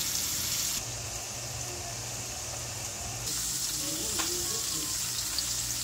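Sliced bell peppers and onions sizzling in oil in a frying pan: a steady hiss that drops about a second in and comes back louder past halfway. A single sharp click a little after the middle.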